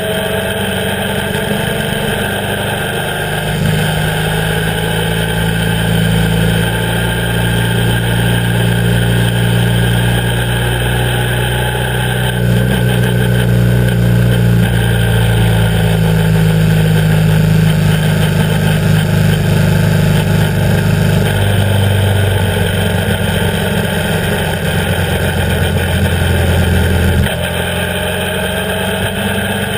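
BMW R 1150 GS's air/oil-cooled flat-twin boxer engine running while the motorcycle rides along the road, with wind and road noise. The engine note shifts several times and drops near the end.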